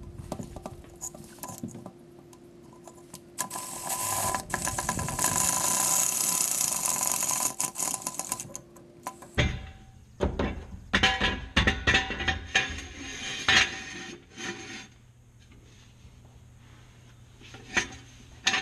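Cordless drill running for about six seconds, turning the truck jack's wand through a gator-grip socket to lift the truck. It is followed by a run of irregular metal clanks and knocks, with two more clanks near the end as a steel jack stand is set in place.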